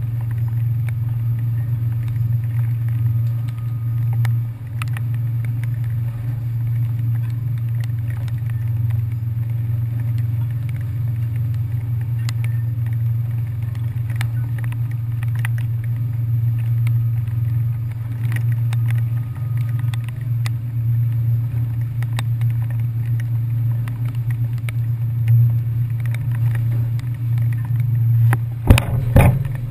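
Ferry engines droning steadily with a low, even hum, with scattered light ticks and a few loud knocks near the end.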